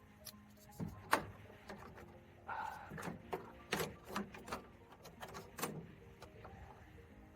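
A run of sharp clicks and knocks, about a dozen over five seconds, like parts and tools being handled, with a short squeak about two and a half seconds in, over faint background music.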